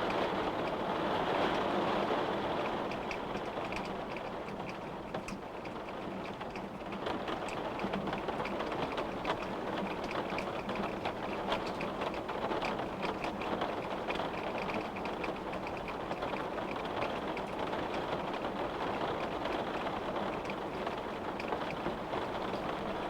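Rain falling steadily, with many small drops tapping sharply against a window pane over a constant rushing patter.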